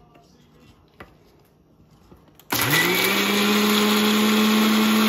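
An Indian mixer grinder switched on about halfway through, its motor spinning up quickly to a steady whine while it grinds coconut chutney in its steel jar. Before it starts, a few light clicks as the jar's lid is fitted.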